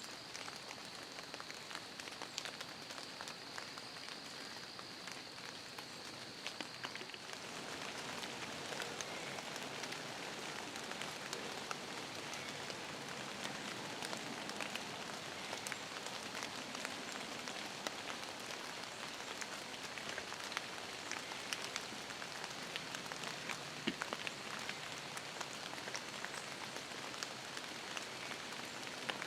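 Steady rain falling, with many small ticks of single drops; it grows a little heavier about seven seconds in. A faint, steady high whine is heard for the first several seconds and then fades.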